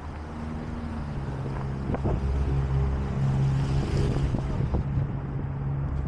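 A vehicle engine running with a steady low hum that grows louder about two seconds in, over general street noise.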